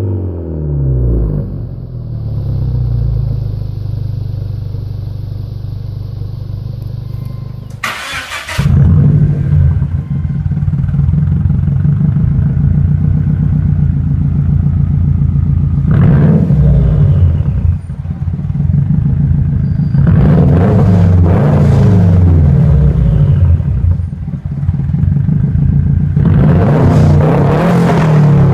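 A car engine idling on an aftermarket exhaust. About eight seconds in, after a loud burst, a 2006 Subaru Legacy GT's turbocharged flat-four takes over on a straight-pipe exhaust. It idles with a rough, uneven beat and is blipped up and back down several times.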